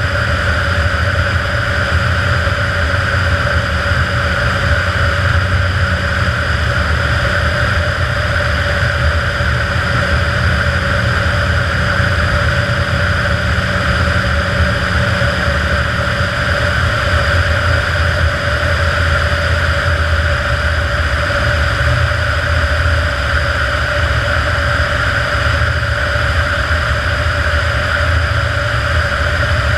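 Kitfox IV floatplane's engine and propeller running steadily in cruise flight, a constant even drone.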